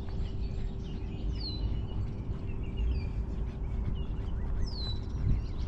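Songbirds calling by the river: one bird gives a high, falling whistled call about every three seconds, with shorter chirps from others, over a constant low rumble of outdoor noise. A faint steady hum stops near the end.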